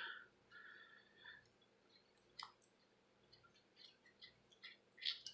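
Near silence, with faint scattered clicks and taps from fingers handling a small metal reflex sight, the Holosun HS503GU.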